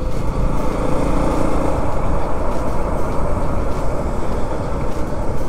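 Motorcycle in motion on a road: a steady rush of wind on the microphone with the bike's engine running underneath.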